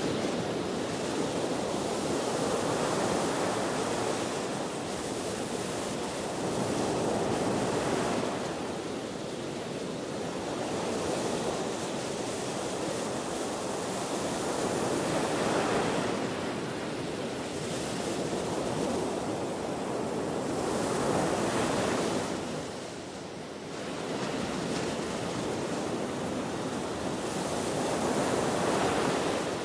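Ocean surf breaking on the shore with wind, the wash swelling and easing about every four to six seconds, dropping briefly about three-quarters of the way through.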